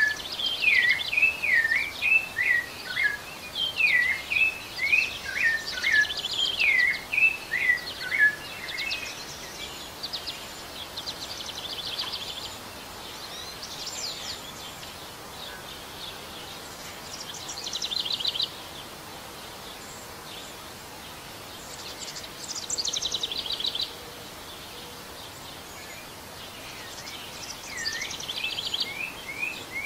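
Rufous-bellied thrush (sabiá-laranjeira) singing a quick run of short slurred notes, then pausing for about twenty seconds while only faint high trills sound over a steady background hiss, and resuming its notes near the end.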